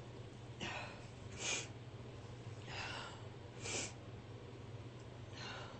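A woman breathing hard and sniffing between sneezes: five short, breathy intakes and exhales, the sharpest about one and a half and nearly four seconds in.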